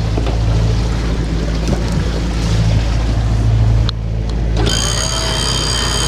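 Sailing yacht's diesel engine running with a steady low drone under wind and water noise. About two-thirds of the way in, an electric winch starts with a steady high whine as the jib is furled.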